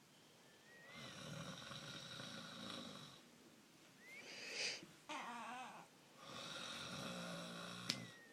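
A man snoring: a string of rough breaths with short gaps between them. Two long snores bracket a shorter breath and a wavering, pitched one in the middle.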